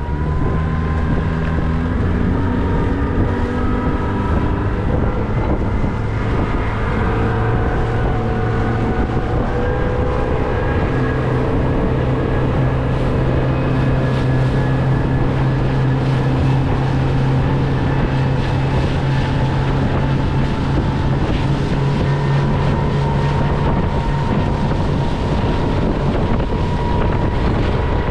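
A Carolina Skiff's outboard motor running under way, its engine note shifting in pitch a few seconds in and then holding steady. Wind buffets the microphone throughout.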